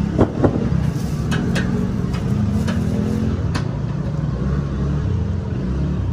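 Steady low rumble of street traffic, with a few sharp clicks and taps in the first few seconds.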